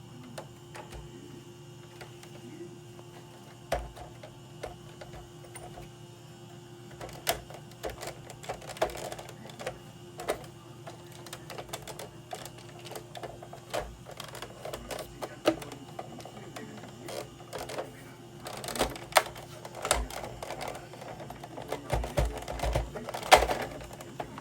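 Irregular clicks, taps and small knocks of hand tools and hard plastic and metal parts being handled during console disassembly, sparse at first and busier in the second half, over a steady low electrical hum.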